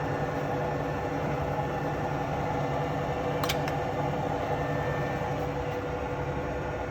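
Alzmetall AB35S drill press running, its spindle turning with the power down feed engaged: a steady machine hum, with one light click about three and a half seconds in.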